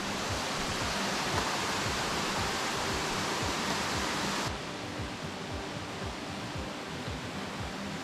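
Steady rush of creek water running down a small waterfall, its hiss dropping to a duller, slightly quieter rush about four and a half seconds in.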